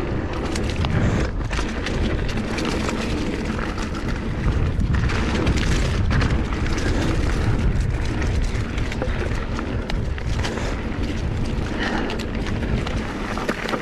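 Wind buffeting the microphone as a mountain bike descends a dirt trail, with tyre noise on the dirt and scattered knocks and rattles from the bike over bumps.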